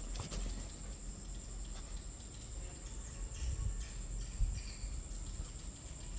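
Ink brush stroking on paper, faint soft swishes as strokes are laid down, mostly a little past the middle, over a steady high-pitched whine and a low rumble.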